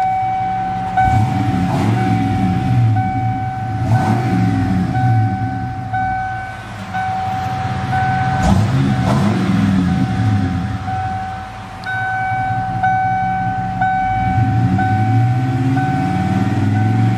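A 1994 Ford F-150's EFI 5.0-litre V8 on its stock exhaust, revved up from idle and back down about four times. The truck's warning chime beeps steadily over it the whole time.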